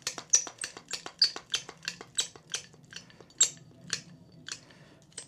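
Handheld dieless hydraulic cable crimper being pumped to crimp a ring terminal onto 1/0 battery cable, a short sharp click with each stroke of the handle. About three strokes a second at first, slowing to about two a second toward the end.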